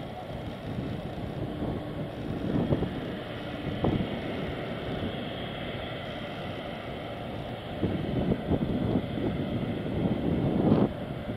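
Jet engines of a twin-engine airliner at takeoff thrust as it climbs away, a steady rumble. Gusts of wind buffet the microphone now and then, hardest near the end.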